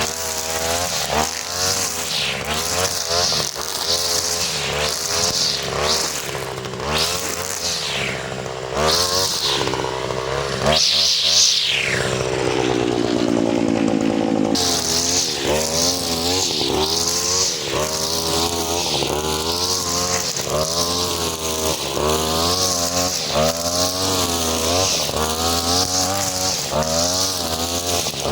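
43cc two-stroke brush cutter running with a four-strand 2.5 mm nylon line head, its engine speed rising and falling repeatedly as it cuts. Around the middle it climbs sharply, then holds a smooth falling pitch for a few seconds before the quick up-and-down revving resumes.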